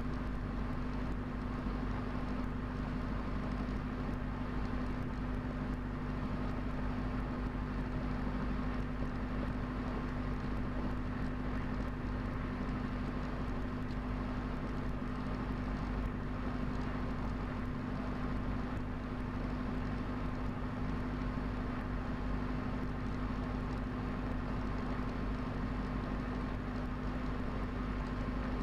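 Diesel engine and propeller of a Cessna 172 running steadily, heard from inside the cockpit: an even drone with a strong hum that holds one pitch throughout.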